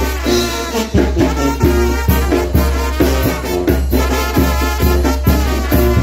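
Trumpets playing a chilena melody over a steady bass beat that comes about twice a second.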